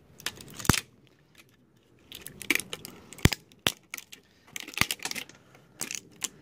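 Channel-lock pliers wrenching small copper transformers off a CRT television's circuit board: a string of sharp snaps and clicks as the parts twist free, with scraping in between.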